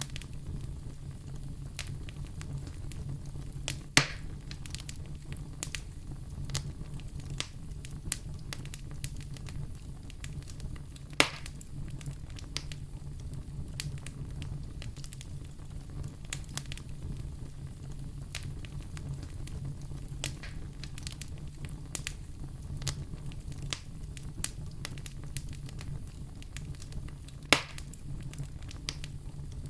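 Wood fire crackling in a fireplace: a steady low rumble with constant small crackles and three louder pops, about 4, 11 and 27 seconds in.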